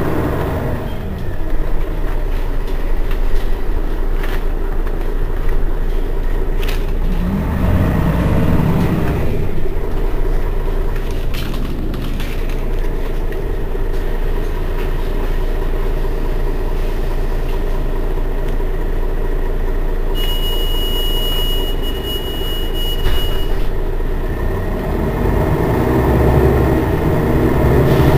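Mercedes-Benz Citaro city bus's rear-mounted diesel engine idling steadily while the bus stands at a stop, with low rumbling swells about eight seconds in and again near the end.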